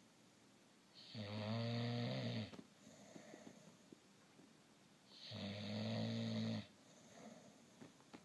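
A sleeping baby snoring: two loud, buzzing snores about four seconds apart, each lasting about a second and a half, with quieter stretches between.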